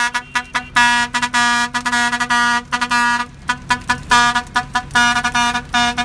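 A vehicle horn tooted over and over in quick bursts of varying length, all on one steady pitch.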